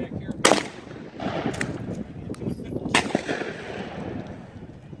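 Shotgun fired twice, about two and a half seconds apart, each shot trailing off in a fading echo, with a fainter bang between them.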